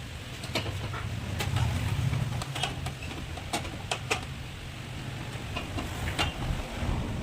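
Low steady mechanical rumble, with several sharp clicks and knocks scattered over it.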